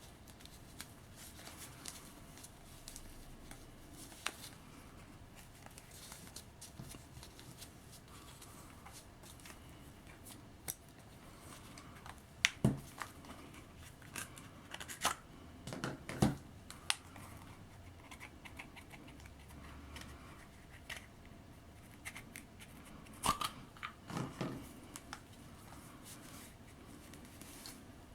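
Faint handling sounds as the fabric uniform is taken off a 12.5-inch Mego action figure: small scattered clicks and rustles, with a few louder short knocks about halfway through and again near the end.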